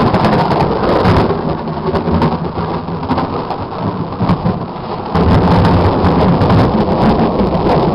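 Loud thunder from a nearby lightning strike, rumbling on over rain, easing off in the middle and swelling again about five seconds in. It cuts off suddenly at the end.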